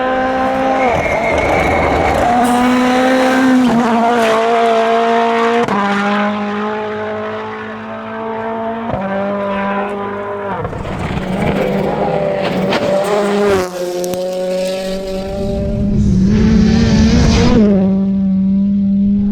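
Rally cars driven flat out: engines running at high revs, the pitch jumping abruptly about half a dozen times as gears change or the next car comes through, with tyre noise and scrabbling in between.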